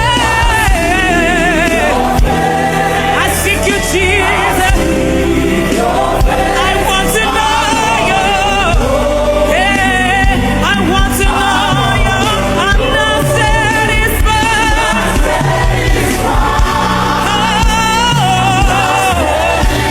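Live gospel worship music: a choir singing over a band, with sustained bass notes and drum strikes.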